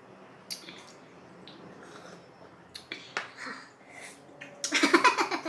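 Close-up mouth sounds of eating: a few sharp smacks and chewing clicks, then a louder burst of voice near the end.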